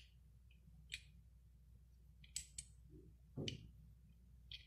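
Faint, sharp clicks of small metal parts as a handle is fitted onto the stem of a shower diverter valve: about five clicks spread over a few seconds, the one about three and a half seconds in a fuller knock.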